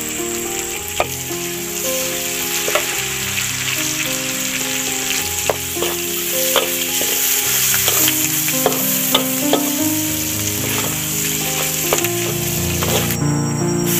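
Fern shoots stir-frying in a hot pan: a steady sizzle with irregular clicks and scrapes of the stirring utensil against the pan. The sizzle cuts out for about a second near the end.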